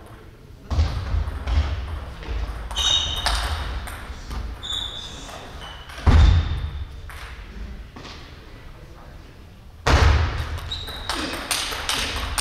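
Table tennis play: the ball clicking off bats and table, shoes squeaking on the wooden gym floor, and loud sudden shouts at about one second, six seconds and ten seconds in.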